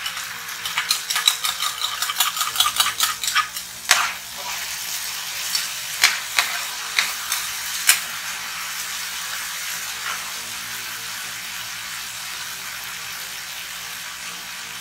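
Teriyaki sauce and onions sizzling in a hot frying pan while a spatula scrapes and taps the pan quickly for the first four seconds, then a few more times up to about eight seconds in; after that only the steady sizzle.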